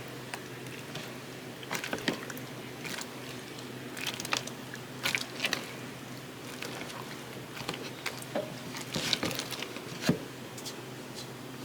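Slime being squished and worked, giving irregular sticky clicks, pops and crackles, with a steady low hum underneath.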